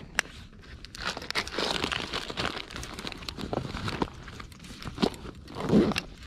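Gloved hands rummaging in a fabric handlebar bag: rustling and crinkling, with small clicks and a louder bump near the end.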